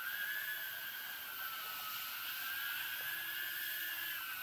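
A 4S 3-inch cinewhoop quadcopter's motors and propellers whining steadily in flight, the pitch wavering gently up and down with throttle.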